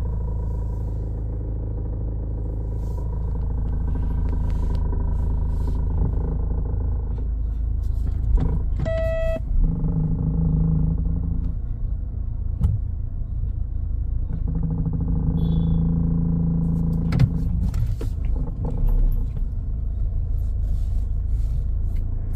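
Steady engine and road rumble of a car being driven, heard from inside, with a short horn beep about nine seconds in.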